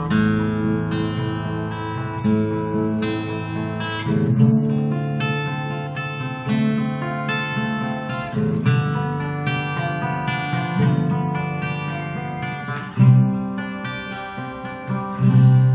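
Carbon-fibre acoustic guitar being played: a run of plucked notes and strummed chords, each ringing into the next, with louder chords struck near the end and left to ring.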